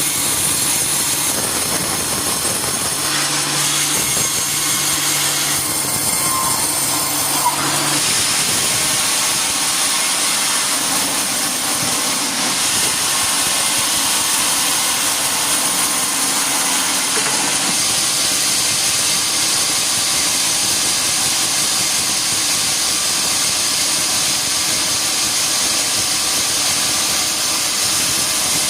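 Sawmill saw running steadily, cutting a teak log: a continuous loud hiss with a high steady whine, the low hum shifting slightly a few times.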